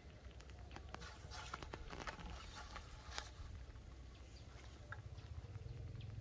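Faint rustles and small clicks of hands working string around plastic bottles, with a steady low rumble underneath.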